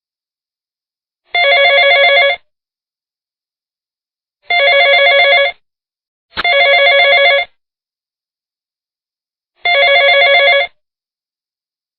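Telephone ringing with an electronic trilling ring: four rings about a second long each, with one pair coming close together near the middle.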